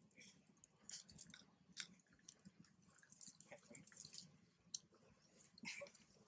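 Faint, irregular wet clicks and smacks from a baby macaque suckling at its mother's nipple.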